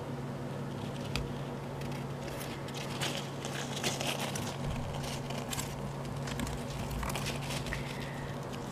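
Soft rustling and scattered light clicks as a hairless rat scrabbles about in paper-pellet bedding and shredded paper, over a steady low hum.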